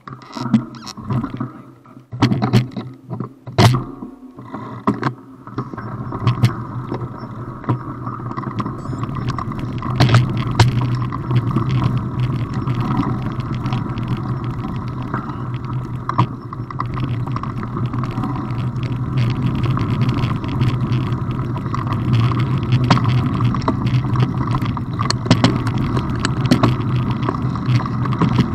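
Mountain bike riding over a dirt and gravel trail: tyres rumbling and the bike rattling, heard from a camera mounted on the bike or rider. A few sharp knocks come in the first five seconds before the riding noise settles into a steady rumble.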